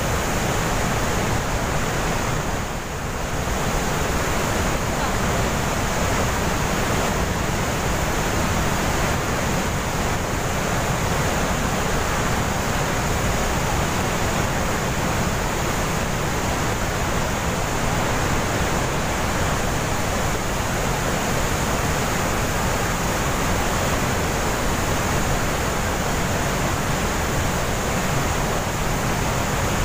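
Glacier-fed waterfall rushing through a narrow rock gorge, a steady, loud roar of falling water.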